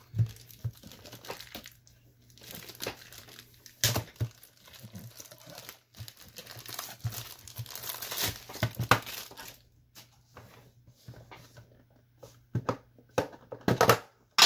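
Plastic shrink wrap crinkling and tearing as it is pulled off a Pokémon trading card box, in irregular bursts. A few loud, sharp clacks come near the end as the box is opened.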